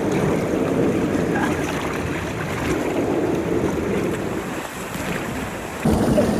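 Rushing water and wind buffeting the microphone, a steady rumbling noise that grows louder near the end.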